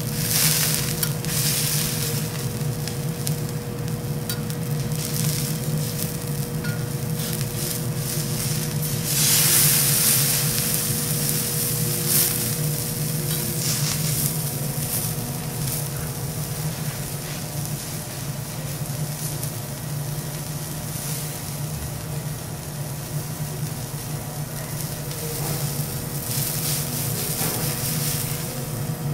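Thick wagyu steak sizzling on a hot steel teppanyaki griddle over a steady low hum. The sizzle swells louder for a second or so about nine seconds in.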